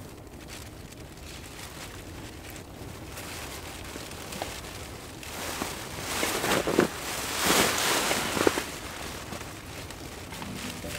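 Sleeping bag rustling as a person shifts and turns inside it, loudest for a few seconds in the middle, over a campfire burning low.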